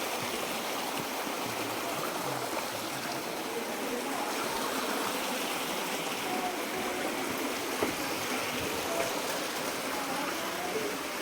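Steady rush of running water, like a stream, even and unbroken, with a few faint short pitched sounds in the background.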